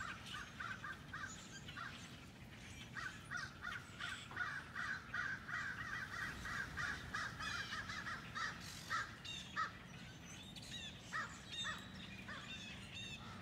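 A large flock of blackbirds calling together: a dense chorus of short calls coming several times a second, thinning out later on, with higher squeaky notes mixed in.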